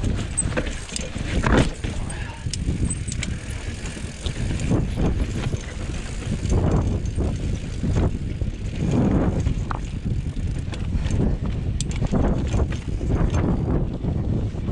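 Banshee Spitfire mountain bike ridden down rocky singletrack: tyres running over stone and slickrock while the bike rattles and knocks over the bumps in a string of sharp clicks. A steady rumble of wind buffets the body-worn camera's microphone.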